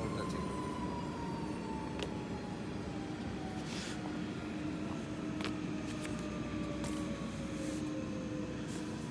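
Steady machine hum from a vibrating knife cutting machine, with a faint whine that falls slowly in pitch like a motor running down, and a few light clicks.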